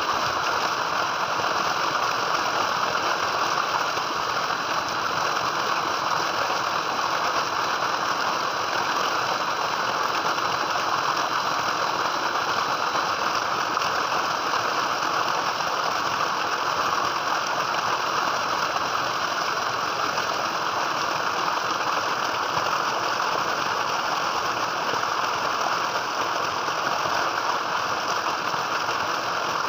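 Water gushing steadily from a tubewell's outlet pipe into a concrete tank, a continuous pouring splash that holds even throughout.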